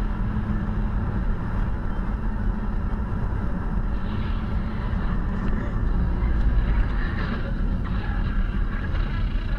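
Steady drone of engine and tyre noise inside a car moving at highway speed, picked up by a dashcam.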